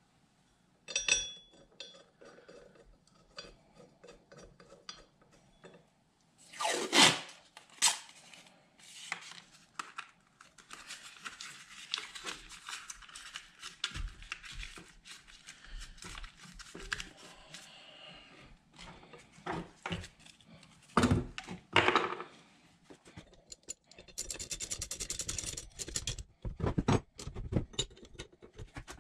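Steel wrenches clinking and clanking against a hydraulic drive pump and its steel mounting bracket as bolts are worked, with runs of rapid clicking in between. Two loud clanks stand out, one about seven seconds in and a pair about three quarters of the way through.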